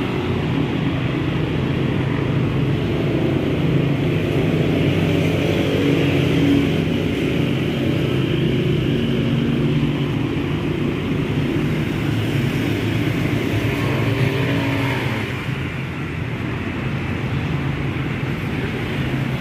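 Road traffic on a busy city street: car and motorcycle engines running in a steady hum under a wash of traffic noise, dropping a little about fifteen seconds in.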